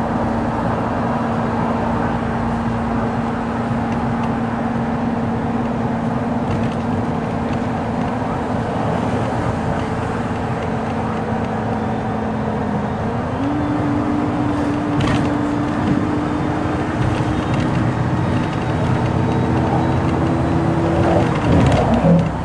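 Road noise of a moving car heard inside its cabin: a steady rush of tyres and wind with an engine hum that steps up in pitch about two-thirds of the way through and falls away just before the end.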